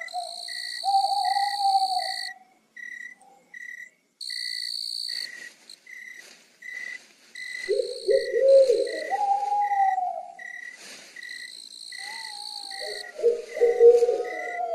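Night-time nature ambience: crickets chirping in an even rhythm of about two chirps a second, with higher insect trills that come and go. Twice, owl-like low wavering calls rise and fall over them, about halfway through and again near the end.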